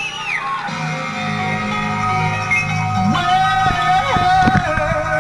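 Music playing, with long held notes and a sliding melody line.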